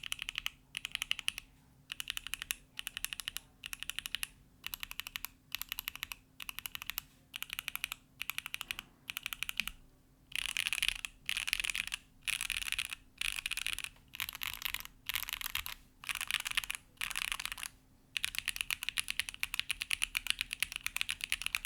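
Mechanical keyboard with hand-lubed Gateron Box Pink switches on a carbon-fibre plate, with plate and case foam and GMK keycaps, being typed on in short fast bursts of keystrokes with brief pauses between them. Near the end the typing runs on without a break for a few seconds.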